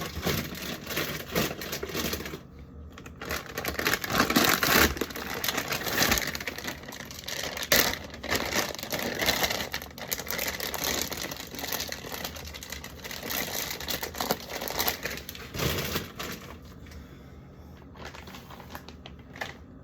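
Plastic bags of shredded cheese crinkling as they are handled and packed away, in irregular bursts with a few sharp clicks.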